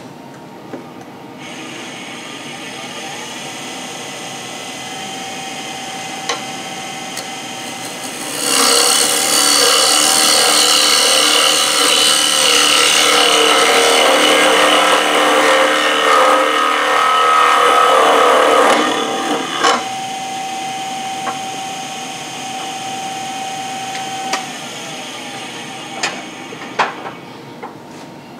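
Wood lathe motor running. From about eight seconds in, a turning tool is held against the spinning end grain of a wood blank for about eleven seconds, a loud, dense scraping and shaving sound as the tool faces off the surface. Afterwards the lathe runs on with a steady tone and winds down, with a few clicks near the end.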